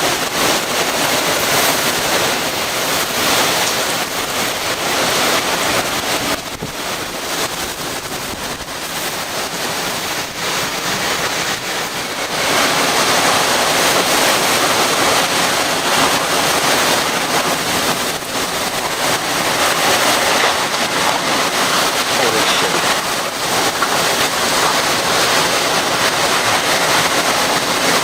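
Hurricane-force wind and driving rain of a Category 4 hurricane: a loud, steady rushing roar that eases about six seconds in and builds back up about twelve seconds in.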